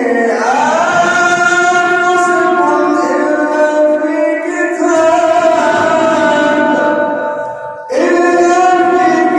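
A man's voice in melodic Quran recitation (tajwid), drawing out long ornamented notes that slide slowly between pitches. He breaks off for a breath about eight seconds in, then takes up the held note again.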